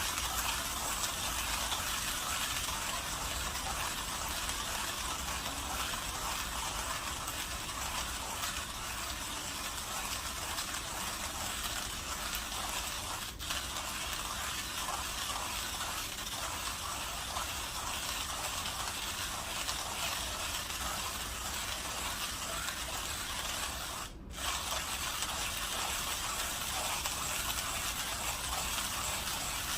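Millwright hand grinder grinding coffee beans at a fine espresso setting, the handle turned steadily so the burrs give an even, continuous grinding noise, with a brief break about twenty-four seconds in.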